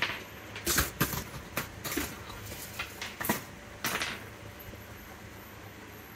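About ten light, sharp clicks and taps over the first four seconds as a laptop motherboard and small metal tools are handled at a repair bench. A faint steady hum stays under them.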